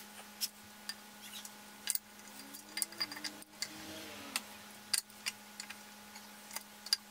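Irregular light metallic clicks and taps as an oiled camshaft, held by two long studs threaded into its nose, is eased into an LS V8 engine block.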